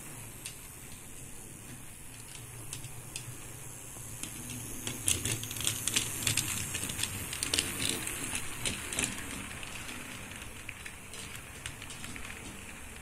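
Model railway train, a locomotive pulling passenger coaches, running on the track with a low motor hum and the wheels clicking over the rail joints. The clicking gets louder and busier about five seconds in as the train passes close, then fades again.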